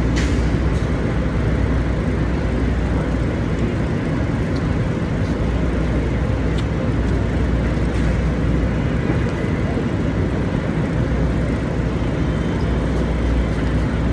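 Steady low rumble of city street traffic, with a vehicle engine idling as a constant low hum underneath.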